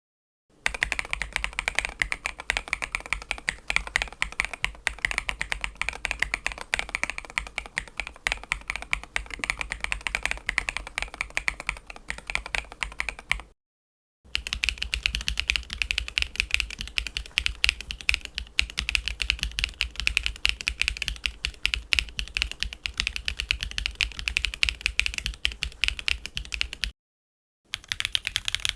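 Fast, continuous typing on a mechanical keyboard with SWK Cheddar linear switches, a dense run of key clacks. It breaks off into silence for about half a second twice, once about midway and once near the end.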